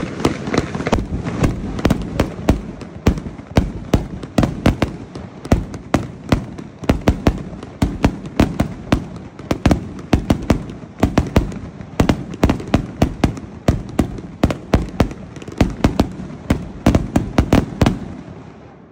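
Consumer firework cake firing, a fast string of sharp bangs, several a second, over a continuous rush of noise; it dies away about eighteen seconds in.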